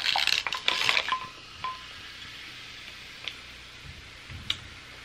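A drink poured from a plastic bottle into a stainless-steel tumbler for about the first second, then two light ringing clinks. A faint steady hiss follows, with a couple of small ticks.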